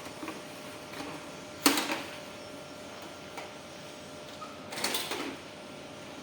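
Metal parts of a cash recycling machine being handled as its cash cassettes are worked in and out: a sharp clack about one and a half seconds in, a few light clicks, and a rattling sliding clatter near the end.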